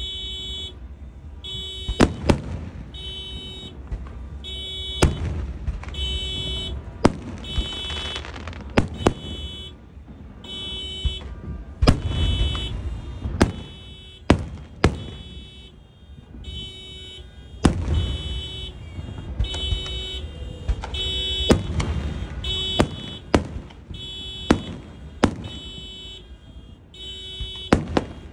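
A car alarm beeping in a steady repeating rhythm, set off by the noise of the fireworks, with many sharp firework bangs going off among the beeps.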